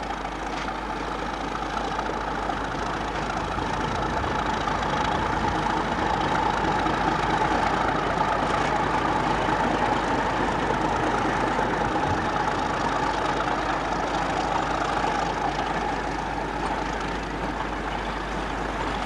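British Rail Class 31 diesel-electric locomotive, with its English Electric V12 engine, running past at close range hauling a freight train, together with the wheels of its wagons on the rails. The sound swells as the locomotive draws level and eases off as the wagons follow.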